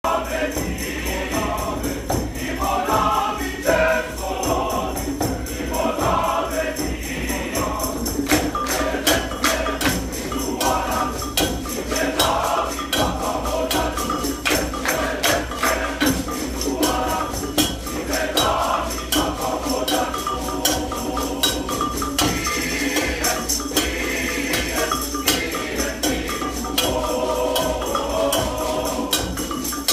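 Men's glee club choir singing in harmony, with hand percussion such as tambourine joining in a steady driving rhythm about eight seconds in.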